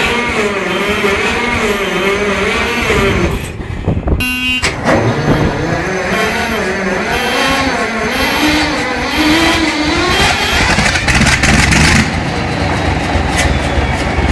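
Large multi-cylinder diesel engine running rough just after a cold start, its note wavering up and down. About four seconds in the sound breaks briefly and the engine note climbs again, then it runs on a little steadier near the end.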